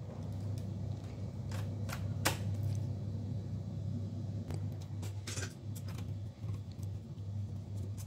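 A few light metallic clicks and scrapes as a sheet-metal drive cage is slid back into its bay in an opened all-in-one PC chassis and pressed into place, over a steady low hum.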